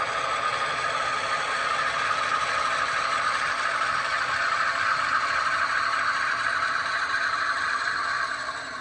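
HO scale model diesel locomotives passing, with a steady diesel engine sound and a rattle of wheels on the track. The sound drops off about eight seconds in as the locomotives move away.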